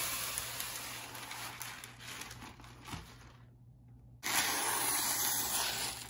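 Parchment paper being pulled off the roll and spread on a table, a steady papery hiss. After a brief break about three and a half seconds in, a louder steady hiss as scissors slide through the parchment paper.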